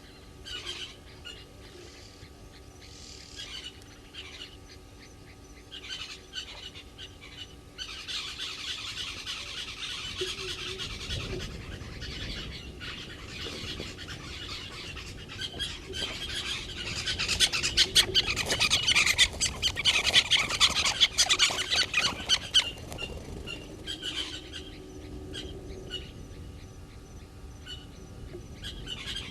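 Wild birds calling and chattering. Scattered chirps build into a loud, dense chatter about halfway through, then ease off again.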